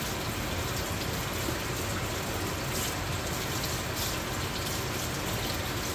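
Kitchen faucet running steadily, the stream splashing over pieces of saltfish being rinsed by hand and into a stainless steel sink.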